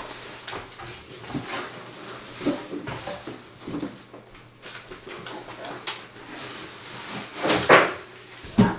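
Paper handling: a greeting card and its envelope rustling, with light knocks and taps on the countertop, and a louder rustle near the end.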